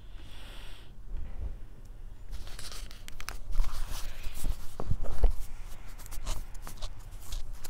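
Rustling and crinkling with scattered light clicks and a few low knocks, busiest in the middle of the stretch.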